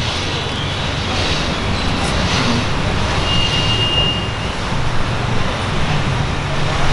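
Steady street traffic noise, a continuous rumble of passing vehicles, with a brief high tone about three seconds in.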